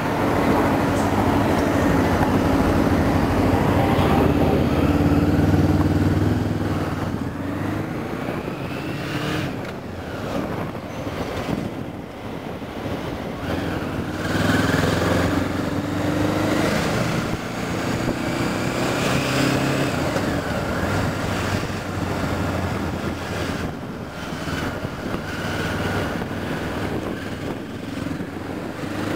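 Honda CB500S parallel-twin engine heard from on the bike while riding, its note rising and falling as the throttle is opened and eased off several times. It is loudest for the first several seconds and picks up again twice later on.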